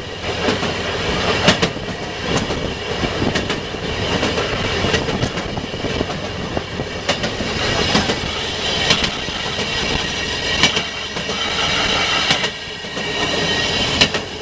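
Railroad speeder car riding along the track, heard from aboard: a steady rolling rumble with repeated sharp clacks as its steel wheels cross the rail joints.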